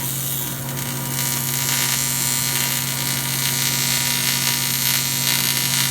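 Wire-feed MIG welder running an aluminum weld: a steady hiss of the arc that cuts off abruptly at the end.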